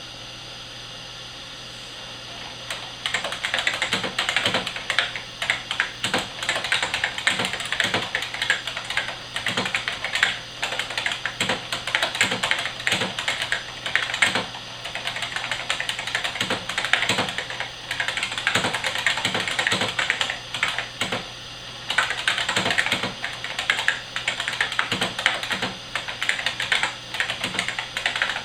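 Unicomp 101 buckling-spring mechanical keyboard being typed on: a quick, uneven stream of sharp clicks starting about three seconds in, with a short lull about three-quarters of the way through. A faint steady hum runs underneath.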